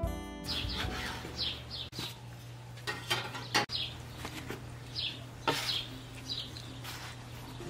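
Birds chirping: short, falling high chirps repeated roughly once a second, over a low steady hum, with a few sharp clicks and knocks.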